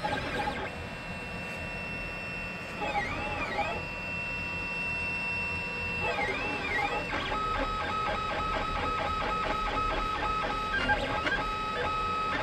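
LulzBot 3D printer's stepper motors whining in steady pitched tones that dip and shift as the print head moves while printing PLA parts. About seven seconds in, the tones change to a quick, repeating pattern of short notes.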